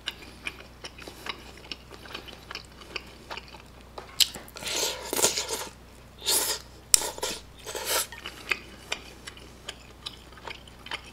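Chopsticks clicking lightly against a ceramic dish while picking up saucy sweet-and-sour pork, then a run of loud slurping and eating noises from about four to eight seconds in as the sauce-covered pieces go into the mouth.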